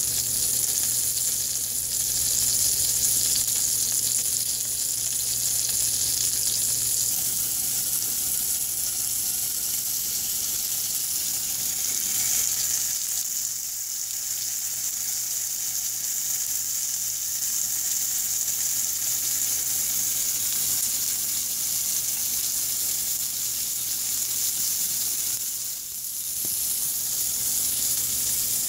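Bacon-wrapped grilled cheese sandwich sizzling in bacon grease in a frying pan: a steady, continuous sizzle that dips briefly twice, about halfway through and near the end.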